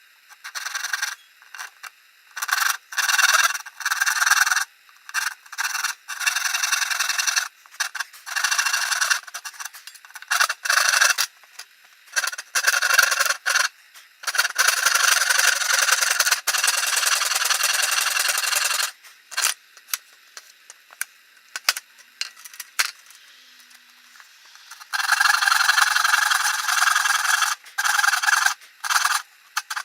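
Wooden board being sawn: stop-start cutting noise, short spells and longer runs of several seconds, with brief pauses between.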